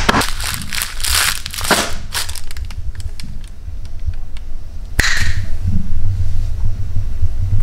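Food-preparation handling noises: a run of short crunching, crinkling bursts in the first two seconds, then a sharp click about five seconds in, over a steady low hum.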